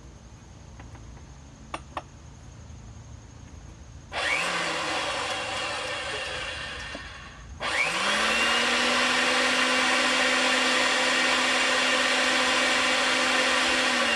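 Electric pipe-threading machine threading gas pipe. Its motor runs for about three and a half seconds from about four seconds in, stops, then starts again, spins up to a steady speed and runs on to the end.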